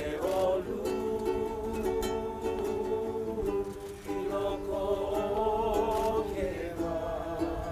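Ukulele music: plucked string chords repeated in a steady rhythm, with a melody line above them.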